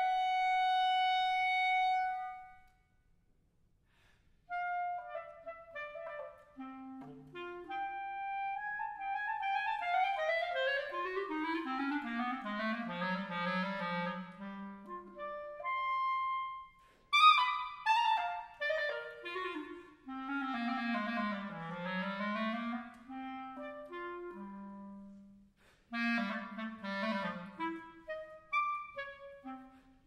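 Background music: a melody of single pitched notes with several falling runs, and a pause of about two seconds near the start.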